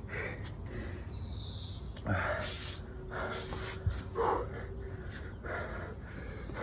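A man breathing hard after a high-intensity round of jump squats and jumping lunges, with about four loud, gasping breaths in the second half. A short high falling chirp comes about a second in.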